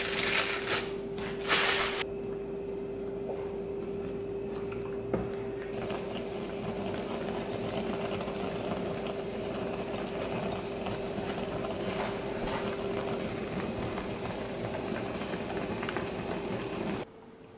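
Spicy tteokbokki sauce with rice-cake noodles and fish cake simmering in a frying pan: a steady bubbling crackle over a steady hum. A few clattering knocks come in the first two seconds, and the sound cuts off suddenly near the end.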